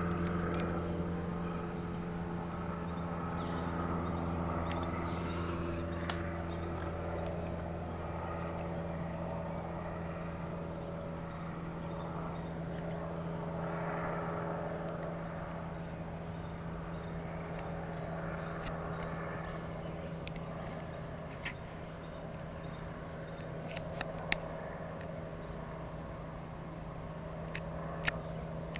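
Guimbal Cabri G2 helicopter flying by at a distance: its four-cylinder piston engine and rotors give a steady low drone, whose higher overtones fade out after several seconds as it draws away. A few sharp clicks come near the end.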